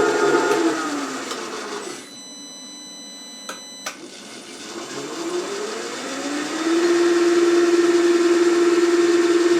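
Machine spindle motor power-tapping in low range: it winds down after being switched off, two sharp clicks come about three and a half seconds in, then the motor spins back up and settles into a steady whine.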